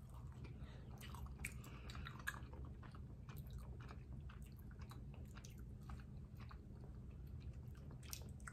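People chewing and biting slices of fresh peach close to the microphone: quiet, irregular wet clicks and smacks of the mouth.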